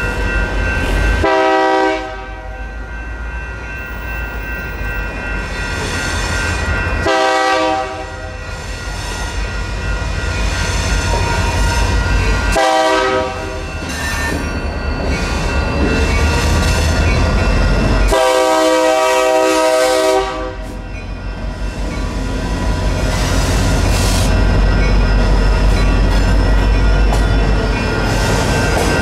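Union Pacific freight locomotive's multi-chime air horn sounding four blasts for a grade crossing, the last one long. Steady ringing of the crossing's electronic warning bells runs throughout, and the diesel locomotives grow louder as they reach the crossing near the end.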